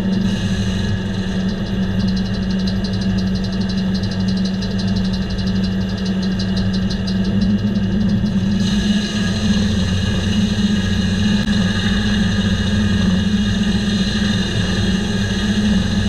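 Diesel engine powering a circle sawmill running steadily, its large circular blade spinning. About nine seconds in, a brighter, hissier sound joins the steady hum and holds.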